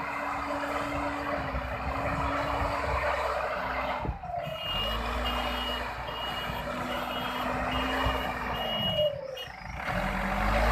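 Diesel engine of a JCB 3DX backhoe loader running under load, its pitch dipping and recovering, with a reversing alarm beeping about twice a second from about four seconds in until about nine seconds in. The sound breaks off abruptly for a moment twice.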